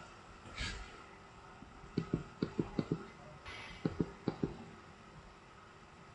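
Aerosol spray paint can hissing in two short bursts, about half a second in and again around three and a half seconds in. Two runs of quick, light clicks, the loudest sounds here, come about two seconds in and again around four seconds in.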